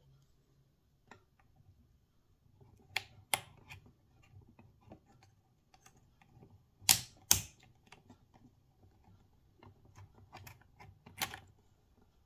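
Scattered keystrokes on the Asus ROG Azoth mechanical keyboard's NX Red switches: a few sharp key clicks with pauses between them, some coming in quick pairs, among fainter taps.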